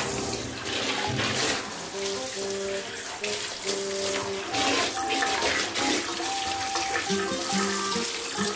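Water running and splashing in a plastic tub as a lathered Yorkshire terrier is scrubbed with a handheld brush, with a light tune of background music playing under it.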